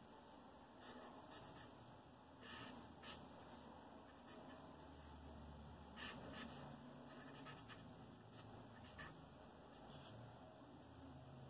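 Charcoal scratching and rubbing on sketchbook paper in faint, irregular drawing strokes.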